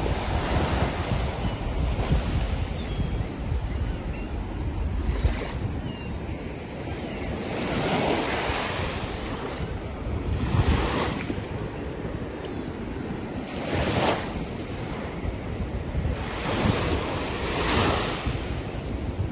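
Sea waves breaking and washing on a rocky shore, coming in about five surges a few seconds apart, with wind buffeting the microphone throughout. A few faint, high bird calls sound in the first few seconds.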